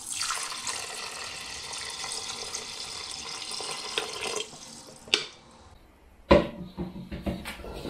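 Water poured from a plastic jug onto uncooked rice in a multicooker bowl, a steady splashing pour that stops after about four and a half seconds. A sharp click follows, then a loud knock and a few smaller knocks near the end.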